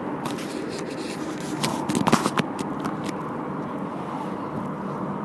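Steady road and engine noise inside a moving car's cabin, with a run of scraping and clicking handling noises during the first three seconds, loudest about two seconds in.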